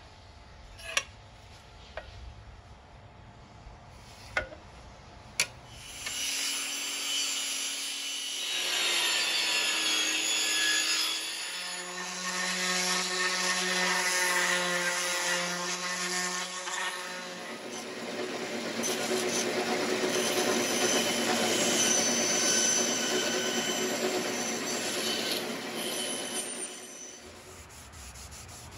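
A few sharp knocks, then a handheld electric sander running against a thin wooden strip for about twenty seconds, its loudness shifting as it works, stopping shortly before the end.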